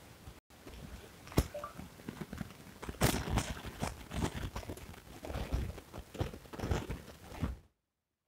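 Handling noise on a smartphone's microphone: irregular crackles, taps and rubbing as fingers work the phone. It cuts off suddenly near the end.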